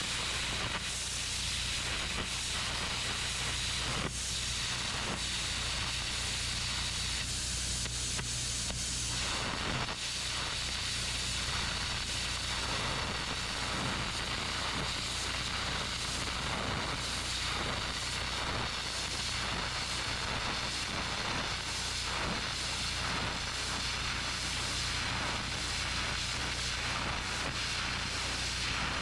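Stick-welding arc on a steel axle spring perch, a steady crackling sizzle that runs without a break, over a steady low hum.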